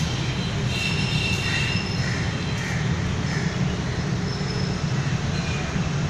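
Steady low background rumble with birds calling over it, mostly in the first half.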